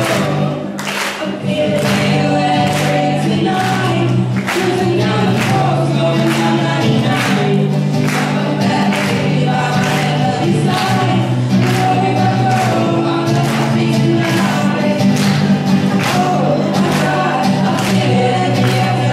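Several young voices singing together into microphones, accompanied by an acoustic guitar, with a steady beat of about two strokes a second.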